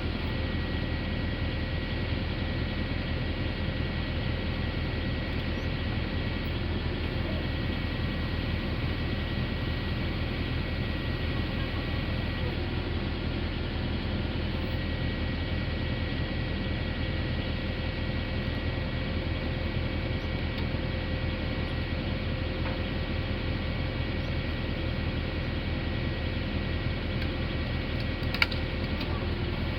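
Diesel engine and hydraulics of a pile-pressing rig running steadily, with a constant whine over the engine's low rumble. A single short click comes near the end.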